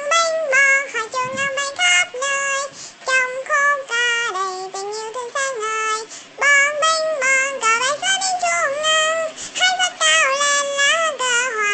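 A high-pitched, child-like voice singing a Vietnamese song melody alone, one held note after another with small pitch bends.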